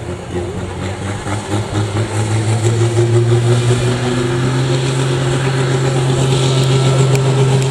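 Fendt 930 pulling tractor's tuned, turbocharged diesel engine revving up while standing still, climbing over the first two or three seconds and then holding a steady, loud high rev.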